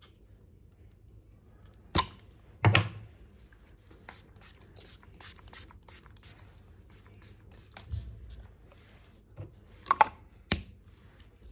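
Small handling noises: a few sharp taps and knocks, with a run of soft quick ticks in the middle.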